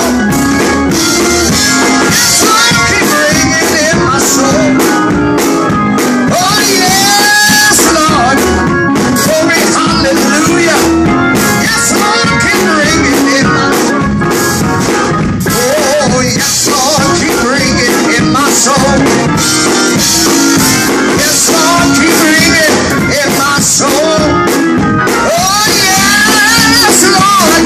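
A man sings gospel over a Hammond-style organ accompaniment. His voice slides and wavers in pitch over sustained organ chords.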